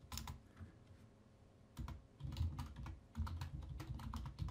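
Typing on a computer keyboard: a few keystrokes at the start, a pause of about a second, then a quick run of keystrokes.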